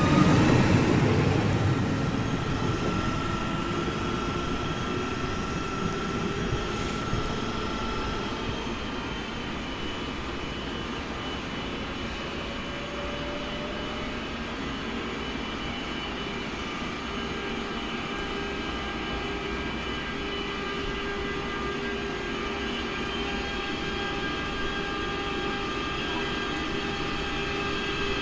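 A red electric multiple unit rumbles past close by at the start, the sound fading over the first few seconds. Then a class 186 TRAXX electric locomotive hauls tank-container wagons slowly through the yard, its traction drive giving a steady whine of several tones that steps up in pitch about two-thirds of the way through.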